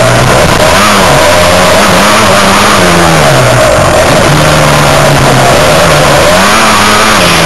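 Dirt bike engine revving up and down as the throttle is worked on and off, its pitch rising and falling every second or two. It is loud and heard close up from on the bike.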